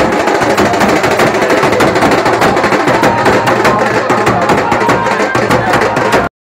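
Loud, fast drumming with a mass of rapid beats, over the din of a crowd. It cuts out abruptly near the end.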